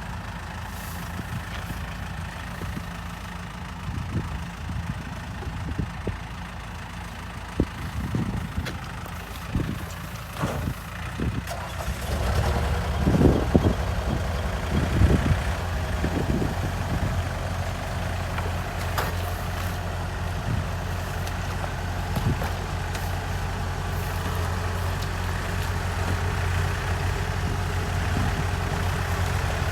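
Tractor and rice harvester engines running. The engine noise becomes louder and heavier about twelve seconds in, with scattered knocks and clunks between about four and fifteen seconds.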